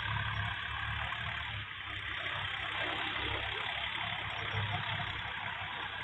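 Massey Ferguson 8055 tractor's diesel engine running under load while pulling a Lemken plough, heard from a distance as a steady low rumble with an even hiss above it.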